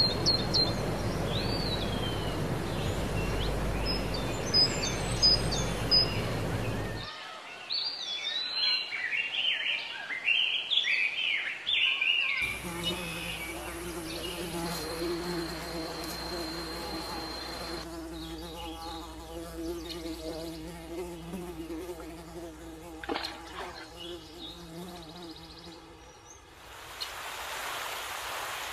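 Forest ambience: birds chirping and twittering over a steady rustle for the first dozen seconds, then an insect buzzing steadily for much of the rest, with a soft hiss rising near the end.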